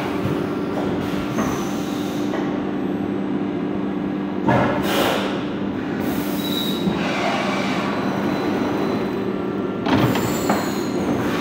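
Discharge conveyor of a Sealpac RE25 packaging machine running: a steady two-tone motor hum under the rattle of the modular plastic belt. There are brief louder swishes about four and a half seconds in and again near ten seconds.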